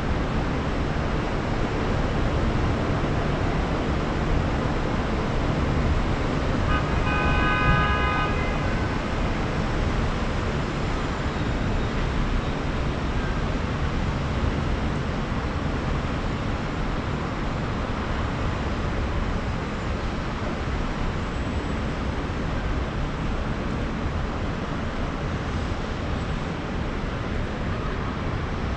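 Steady rush of city street traffic heard from high above. About seven seconds in, a vehicle horn sounds once for roughly two seconds.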